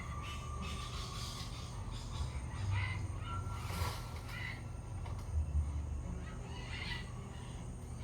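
Macaws giving harsh, scattered squawks, a few short calls spread through, over a steady low hum.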